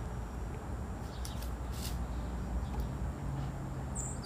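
Wind buffeting the microphone outdoors: a steady low rumble, with a few faint short high sounds about a second and a half in.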